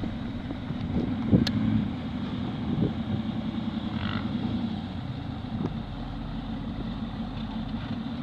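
A vehicle engine running at steady revs, with a few short knocks and clunks.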